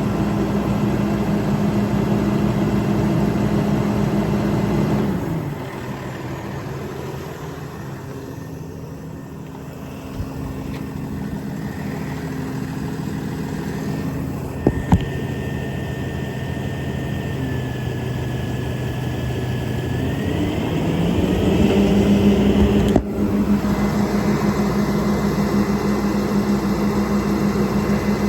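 An engine running steadily, its speed dropping about five seconds in and coming back up about twenty-one seconds in, with a faint high whine and a couple of sharp clicks while it runs slower.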